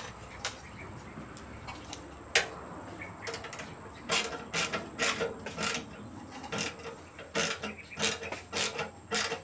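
Hand tools working on a small water-pump petrol engine: metal clicks and clinks of a wrench on the bolts, sparse at first, then about two a second from about four seconds in, each with a short metallic ring.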